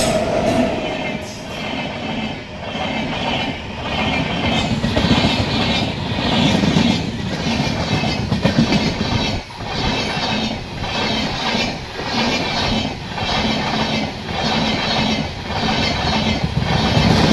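Wheels of an Indian Railways LHB passenger coach running on the track, heard from the moving train: a steady rumble and hiss with a regular clickety-clack beat about once a second.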